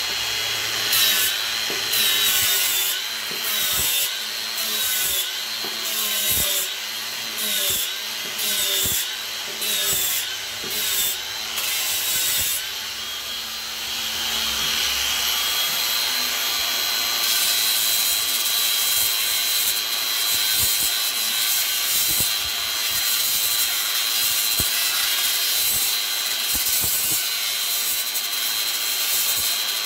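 Cordless angle grinder with an 80-grit sanding disc sanding an ash bowl, the motor's high whine rising and dipping in roughly one-second strokes as the disc is pressed against the wood. About thirteen seconds in it eases off briefly, then runs on steadier.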